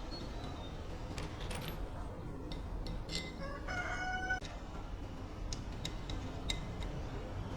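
A rooster crows once, a call of about a second starting about three seconds in. Scattered light clicks and taps sound over a steady low background rumble.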